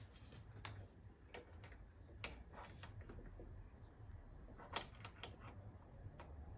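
Faint, scattered metallic clicks and taps as parts and hand tools are handled while the timing chain tensioner is fitted on the engine. The sharpest click comes a little before five seconds in.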